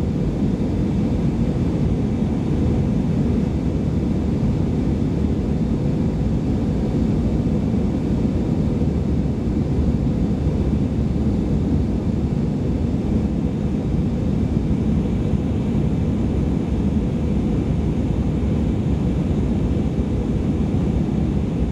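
Steady cabin noise of an Airbus A319-100 in its climb: an even, deep rumble of engines and airflow, with faint steady higher tones above it.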